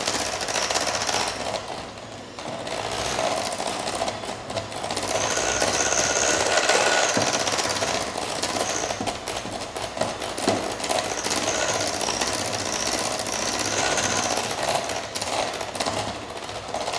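Electric hand mixer running, its beaters whipping cream cheese and sugar in a glass bowl until fluffy, with a brief dip in level about two seconds in.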